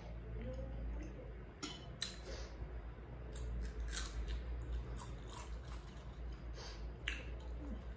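Close-up eating sounds: chewing, with a dozen or so short, sharp mouth smacks and clicks spread through, over a low steady hum.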